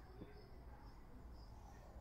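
Near silence: a faint low background rumble with faint short high chirps recurring about every half second.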